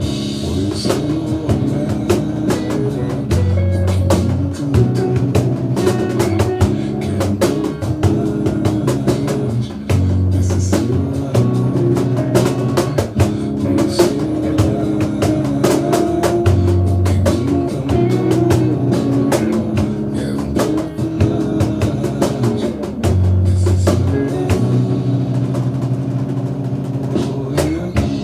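Music with a steady, dense drum beat over a pitched bass line, with guitar.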